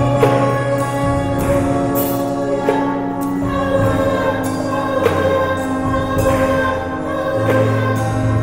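Choir singing gospel music, with long held chords.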